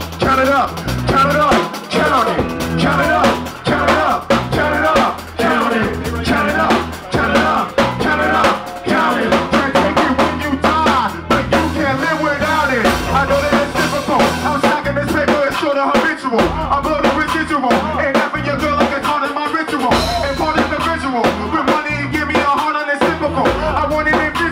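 A live band playing, led by a drum kit, with a vocalist on a handheld microphone over the music.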